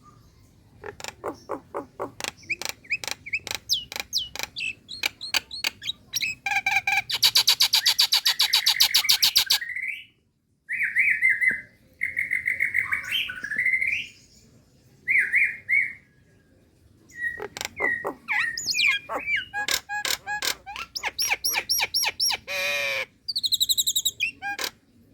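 A female Nias hill myna calling to a male. It gives strings of sharp clicks, a long rapid buzzing rattle about six seconds in, then short clear whistles, with more clicks, whistles and a brief rattle near the end.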